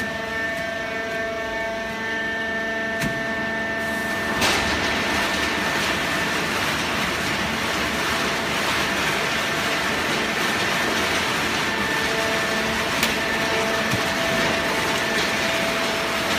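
A fully automatic horizontal hydraulic baling press for waste cardboard is running. It makes a steady mechanical hum with several steady tones. About four seconds in there is a click, and then a louder, even rushing noise sets in and carries on.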